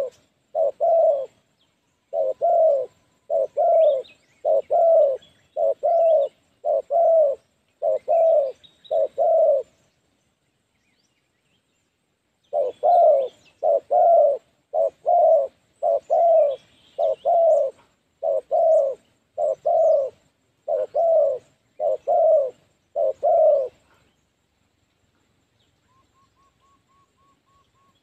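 Spotted dove cooing: a quick run of short, low coos, about three every two seconds. The run breaks off for about three seconds near the middle, then resumes and stops a few seconds before the end.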